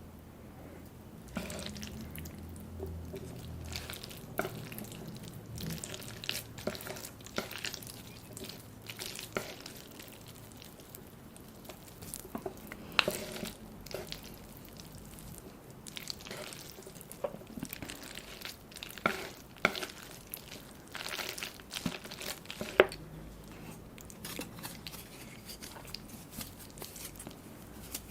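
Close-up eating sounds of instant ramen noodles with fish balls and mini sausages: chewing, wet mouth sounds and sharp clicks scattered irregularly throughout.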